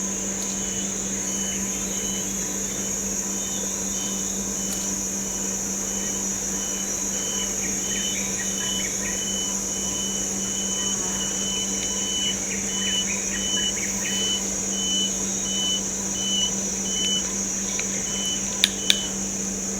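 Forest ambience: insects make a steady high drone and a bird repeats a short piping note about twice a second, with other birds chirping. A steady low hum runs underneath, and two sharp clicks come near the end.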